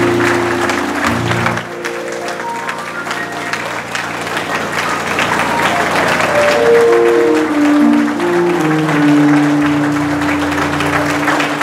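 Audience applauding, loudest in the first two seconds and thinning after that, while music with long held notes plays.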